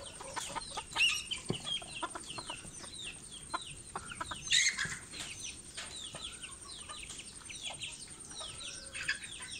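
A flock of Silkie chickens calling and clucking, with a constant run of short, high, falling chirps and a sharper, louder outburst about four and a half seconds in.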